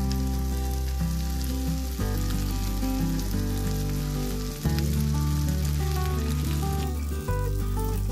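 Beaten egg sizzling and crackling as it is poured onto a hot electric griddle over enoki mushrooms. Background music with sustained low notes that change every two to three seconds.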